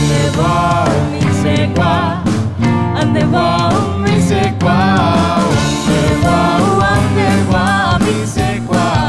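Live band music: a pop-rock song with drums and guitars under a wavering lead melody line.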